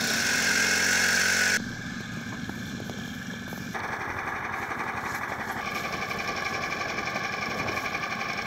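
An engine running steadily, its sound changing abruptly about one and a half seconds in and again near four seconds.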